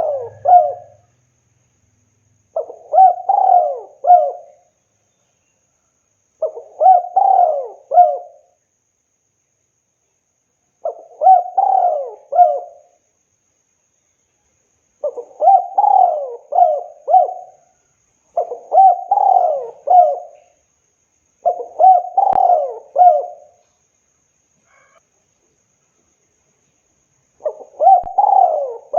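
Spotted dove (tekukur) cooing: phrases of three or four quick coo notes, repeated every three to four seconds, with one longer pause of about four seconds near the end.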